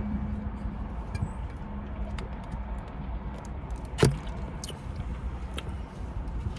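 Steady low rumble of an idling car, with scattered small clicks and one sharp tap about four seconds in.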